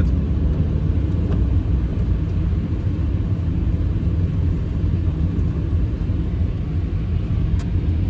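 Steady low rumble of a car's engine and tyres on a wet road, heard from inside the cabin while driving.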